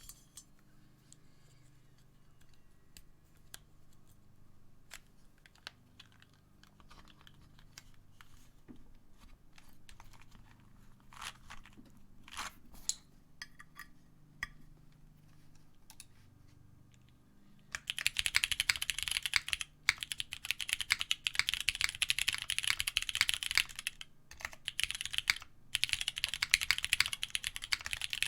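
Mechanical keyboard with vintage Cherry MX Brown switches on a carbon-fibre plate: scattered single keystrokes for the first eighteen seconds or so, then continuous fast typing, much louder.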